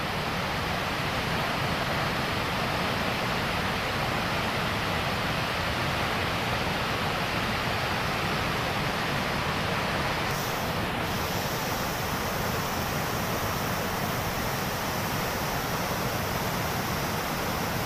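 Flooded mountain stream in spate rushing over a rocky bed: a steady noise of turbulent white water.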